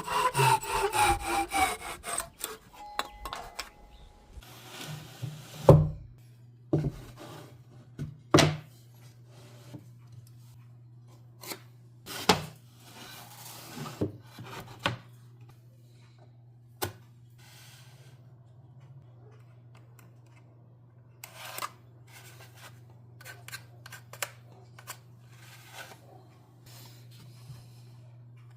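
Hand woodworking: a few quick saw strokes through wood at the start, then scattered knocks, taps and short rubbing scrapes as wooden pieces are handled and fitted together, over a steady low hum.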